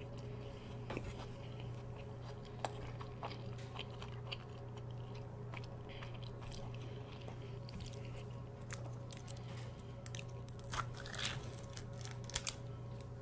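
Close-miked chewing of a mouthful of burger, with many small wet mouth clicks and smacks over a faint steady hum.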